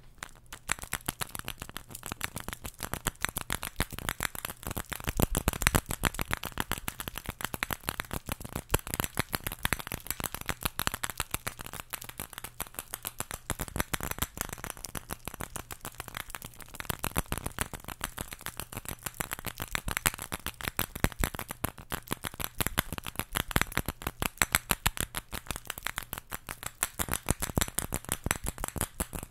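Cluster of small white balls hanging on strings from a stick, jiggled so they knock against each other in a rapid, irregular clicking clatter.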